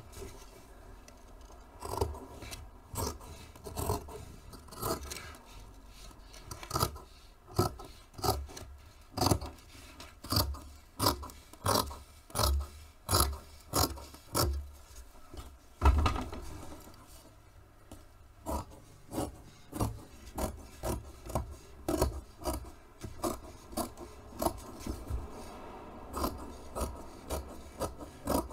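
Scissors cutting through painted fabric along a paper pattern: a steady run of rasping snips, about two a second. One louder knock comes about halfway through.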